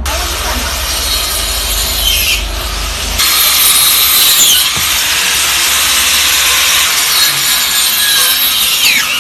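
A saw cutting through wooden trellis poles: steady sawing noise, with an abrupt change about three seconds in.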